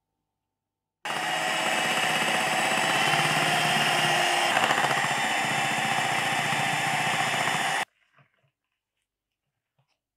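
Electric hand mixer running at a steady speed, its twin beaters whisking cake batter as milk is added. It switches on abruptly about a second in and cuts off suddenly near the end, leaving only faint scraping.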